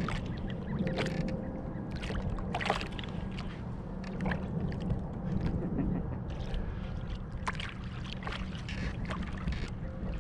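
Water splashing and lapping against a kayak, with short splashes every second or two over a steady low rumble.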